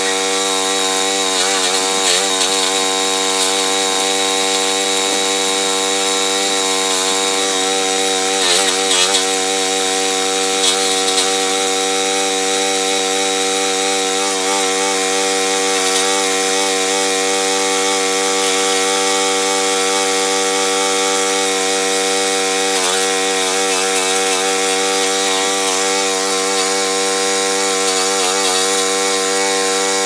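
Forest Master FM6DD-MUL petrol chipper-shredder running steadily at full speed, its small petrol engine droning along with the whirr of the cutting rotor. Now and then the pitch briefly dips and wavers as green garden waste is fed in and shredded under load.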